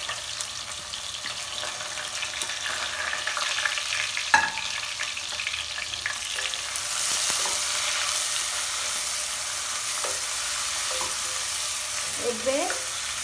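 Sliced onions sizzling in hot mustard oil as they are stirred with a wooden spatula. The sizzle grows louder about seven seconds in. There is one sharp knock a little past four seconds.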